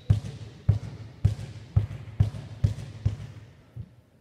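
A ball being bounced repeatedly on a wooden gym floor, about two low thuds a second, fading out near the end.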